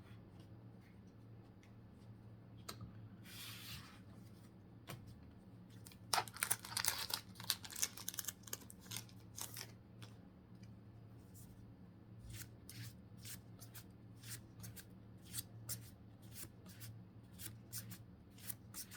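A Pokémon trading-card booster pack's foil wrapper crinkles and tears open, loudest about six to eight seconds in. It is followed by a steady run of light card snaps, about one or two a second, as the cards are flipped through one by one.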